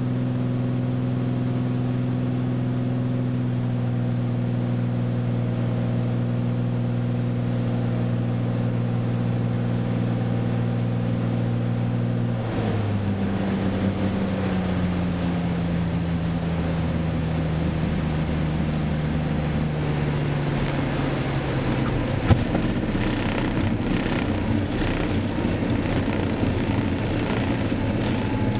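The engine of a small single-engine propeller airplane, heard from the cockpit, drones steadily at approach power. About halfway through, as the plane reaches the runway, the engine note changes and then slowly falls. A sharp thump comes shortly after, and then a rougher, noisier roar as the plane runs fast down the runway.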